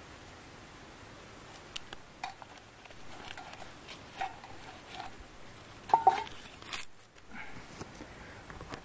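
Metal clinks and knocks of a steel canteen cup being handled and set down on a folding steel stove, with light rustling in between. The loudest is a sharp clink with a short ring about six seconds in.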